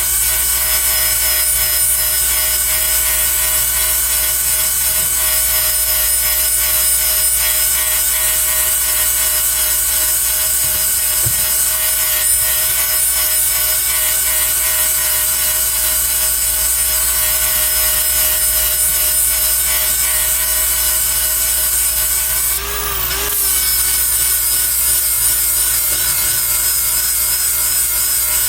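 Angle grinder with a flap disc grinding a worn chipper tooth to sharpen it. It gives a steady high whine with a grinding hiss, and about 23 seconds in the pitch dips briefly before recovering.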